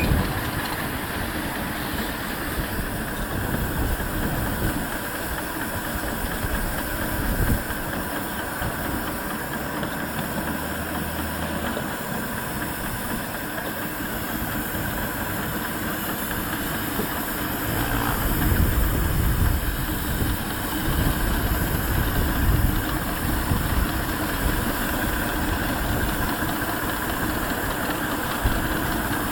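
Romulus-design miniature steam locomotive running along the line, heard close up from the driver's seat: steady steam hiss and exhaust from the chimney.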